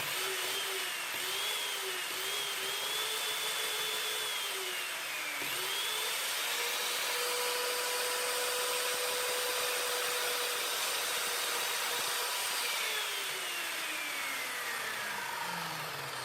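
Evolution R210CMS 210 mm mitre saw's 1200 W motor running, its whine wavering and dipping for the first few seconds as the blade cuts through reclaimed pallet timber. It then runs steady at full speed and, about 13 seconds in, winds down with a smoothly falling whine once the trigger is released.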